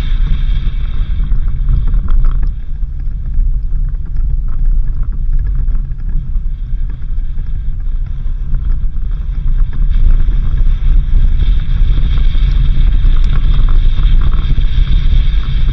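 Suzuki Jimny 4x4 driving on a dirt road: a continuous low rumble of engine and tyres with wind noise on the microphone, easing a little a few seconds in and growing louder again later.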